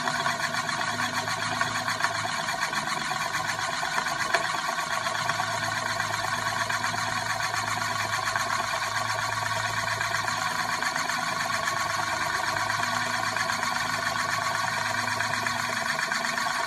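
Euler's disk, a heavy metal disc, spinning and rolling around on its mirror base, making a steady, fast whirring rattle.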